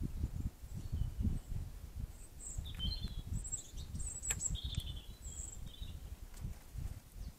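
Irregular low rumbling noise, with several short, faint high chirps of small birds in the middle and a single sharp click a little after four seconds.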